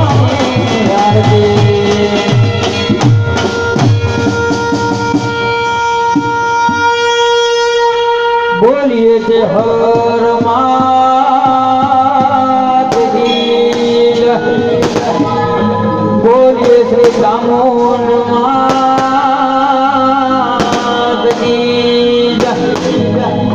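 Live Gujarati aarti music: singing over long held electronic keyboard chords and steady dhol drumming, with sharp percussion strikes now and then.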